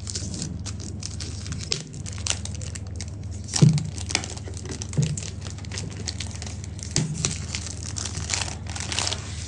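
Cellophane wrap being peeled and torn off a cardboard perfume box by hand: continuous crinkling and crackling of the plastic film, with a few louder crackles about four, five and seven seconds in.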